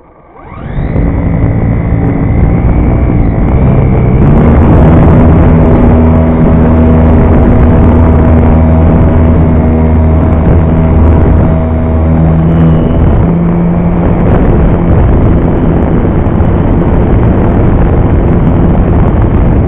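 Motor and propeller of a Super Cub RC model airplane, heard close up from a camera on board. The motor spools up with a rising whine about half a second in, then runs steadily at high power, shifting in pitch about thirteen seconds in.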